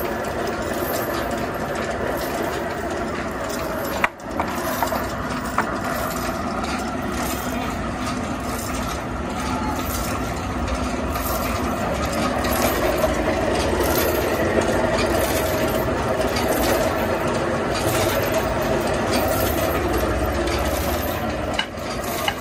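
Horizontal band sawmill running with no log in the cut: a steady mechanical hum and rattle, with a sharp click about four seconds in.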